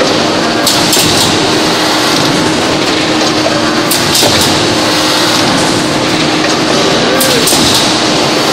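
A 1600-ton hydraulic forging press and its manipulator working a red-hot billet: loud, steady machine noise with a hum, broken by three short bursts of hiss about three seconds apart.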